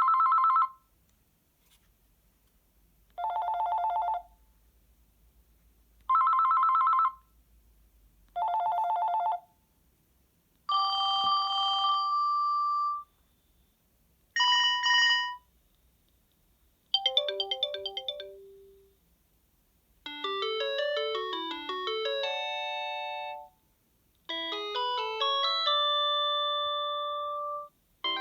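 A Panasonic KX-TGC310 cordless phone plays a series of different ringtones one after another, with short pauses between them. First come four short electronic trilling rings, each flicking between two tones, alternately higher and lower pitched. Then come longer chime-like tones and short electronic ringtone melodies.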